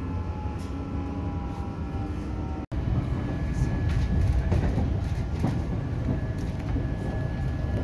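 Passenger train running, heard from inside the carriage: a steady low rumble of wheels on rail with occasional light clicks. The sound drops out for a split second about two and a half seconds in, then the rumble resumes.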